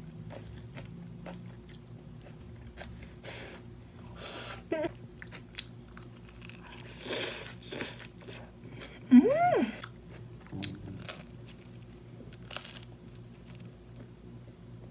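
Close-up eating sounds: crunching and chewing of lettuce salad and toasted bread, with scattered small clicks of utensils. About nine seconds in, a short voiced sound rises and falls in pitch; it is the loudest moment. A low steady hum runs underneath.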